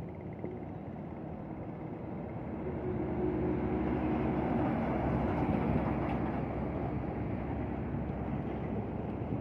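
Diesel tractor-trailer trucks driving past at road speed, engine and tyre noise. The sound builds to its loudest about halfway through as the first truck passes, then eases slightly as a second truck follows.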